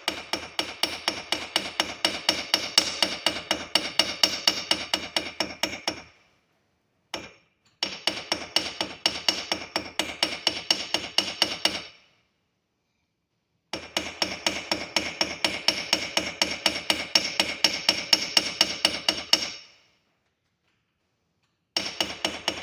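Ball peen hammer striking copper wire on a steel anvil in rapid, ringing blows, flattening and texturing the wire. The hammering comes in four long runs with short pauses between them.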